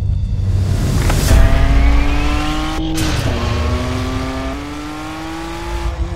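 Ferrari 599 GTB's V12 engine under hard acceleration, its pitch climbing through the revs. The revs drop sharply at a gear change about three seconds in, then climb again.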